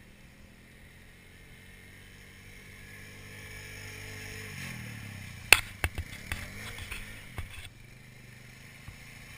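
Honda sport ATV's engine running steadily and growing louder as the quad comes closer, then changing pitch as it is revved through a turn. Several sharp knocks come in the middle.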